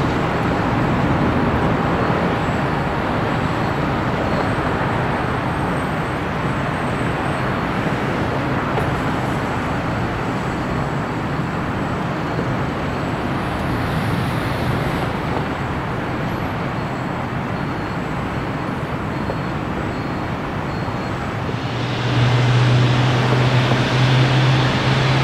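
Boeing 787 jet engines at takeoff power, a steady rushing jet noise as the airliner climbs away and slowly fades. About 22 seconds in, a second Boeing 787 taking off comes in suddenly louder, with a strong low hum under the rush.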